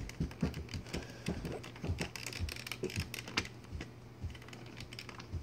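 Irregular clicking and clattering of plastic toy train engines handled and pushed by hand against plastic track and a wooden table edge, several light knocks a second.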